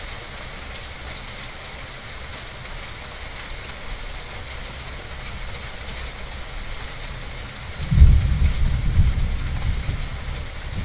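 Steady rain falling, and about eight seconds in a loud, deep rumble of thunder that eases off near the end.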